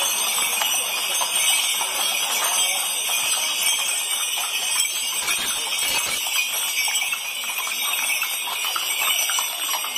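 Horses walking past on a paved street: hooves clip-clopping over a continuous jingling of harness bells.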